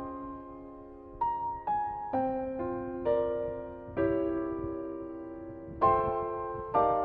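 Background music: slow, gentle piano notes and chords, each struck and left to fade.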